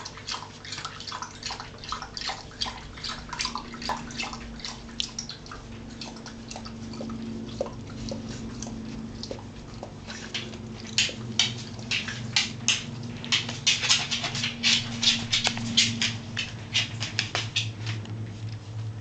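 Two-and-a-half-week-old whippet puppies playing: a quick, irregular run of tiny high squeaks and mouthing clicks, busiest and loudest in the second half, over a steady low hum.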